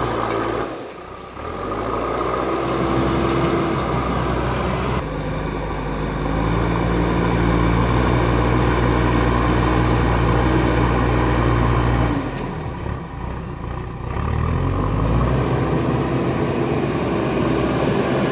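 JCB backhoe loader's diesel engine working under load. It revs up near the start, holds a steady note, drops to a lower pitch about twelve seconds in, then climbs again.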